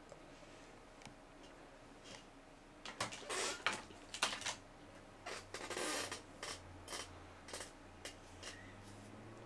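Close handling noises: a string of small clicks and knocks mixed with short rustles, busiest from about three to eight seconds in, over a faint low hum.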